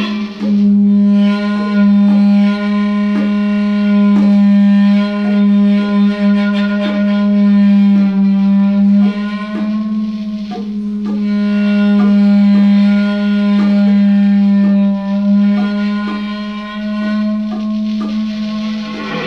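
Electric guitar picking short notes in a steady stream, about two a second, over one loud sustained drone tone that holds the same pitch without a break.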